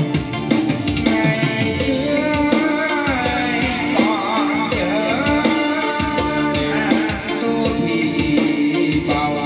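A song played back loud through loudspeakers on test: a sung voice held with vibrato, over drums and plucked strings.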